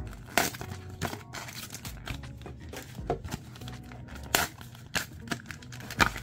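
Foil booster packs of trading cards crinkling as they are handled and moved around in the box, with several sharp crackles, the loudest about half a second in and near the end.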